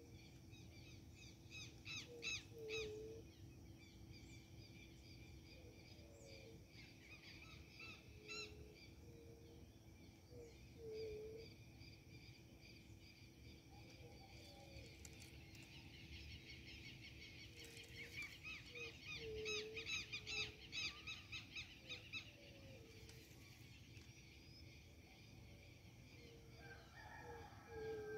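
Faint birdsong: runs of rapid high chirping, loudest from about halfway through, with a lower short call repeating every two to three seconds.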